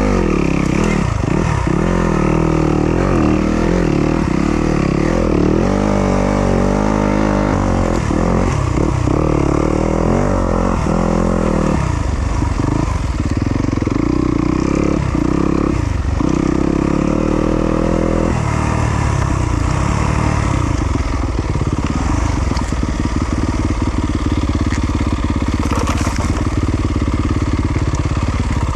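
Yamaha YZ250FX four-stroke single-cylinder dirt bike engine revving up and down in short bursts for the first two-thirds, then running lower and steadier toward the end.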